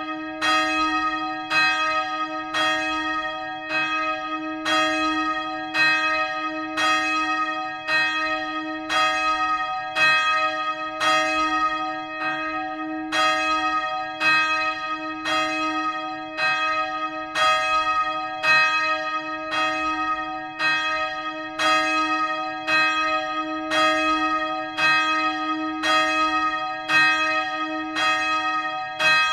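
A single swinging church bell ringing, its clapper striking evenly about one and a half times a second, with a steady hum note sounding beneath the strikes.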